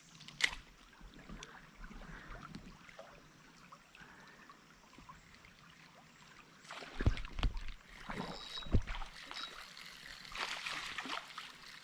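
Quiet river water trickling, with a click about half a second in and a few low thumps and rustles from about seven seconds in.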